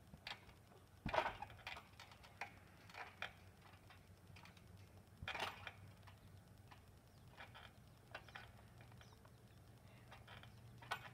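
Faint, irregular thumps and creaks of a trampoline mat and springs as a child bounces and lands. The heaviest thump is about a second in and another about five seconds in, with lighter knocks between.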